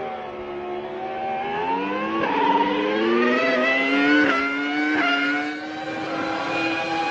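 Formula One racing car engine accelerating at high revs, its pitch climbing and broken by quick gear changes about two, four and five seconds in, then holding a fairly steady high note.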